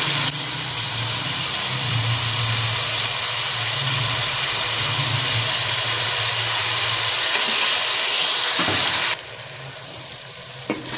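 Onions, tomatoes and ginger-garlic paste sizzling loudly in hot ghee in a metal wok as they are stirred with a metal spoon, over a steady low hum. About nine seconds in the sizzle drops suddenly to a quieter one, with a couple of spoon clicks against the pan near the end.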